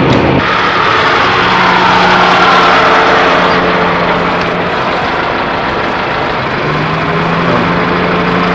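Car engine running along with road noise, swelling about two seconds in and easing off a little later.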